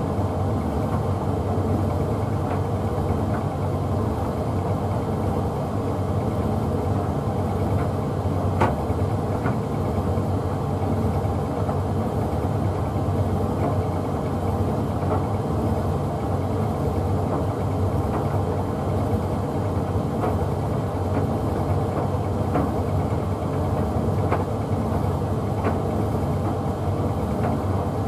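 Hoover Visiontech Infinity VTV581NC tumble dryer running a drying programme: a steady hum of motor and fan as the drum turns a bathmat load, with a few light clicks here and there.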